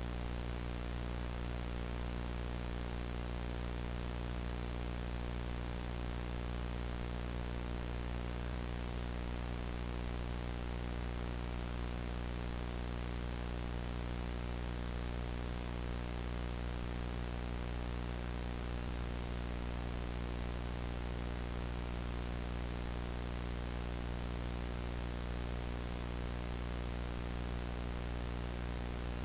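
VHS static: analog tape noise, a steady, unchanging hiss with a low hum underneath.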